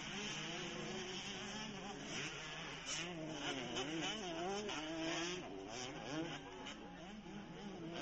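Motocross dirt bike engines buzzing on the track, their pitch rising and falling as the throttle opens and closes through the turns.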